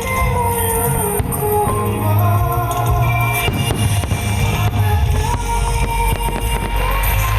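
A song with singing plays loudly while many fireworks shells burst and crackle over it, with a deep low rumble building from about five seconds in.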